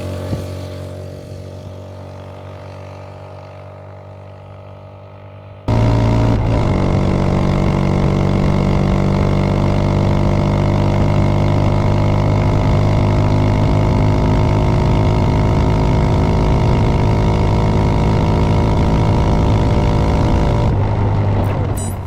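Italika DM150 motorcycle's single-cylinder engine at a steady pitch. It fades slowly for the first several seconds, then jumps suddenly much louder about six seconds in, running steadily at constant speed, and falls away near the end.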